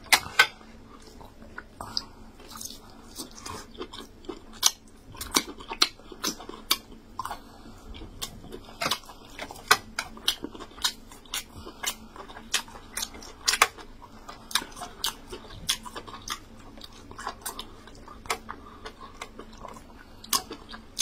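A person eating yam fufu with egusi soup by hand: chewing with short mouth smacks and clicks at an uneven pace.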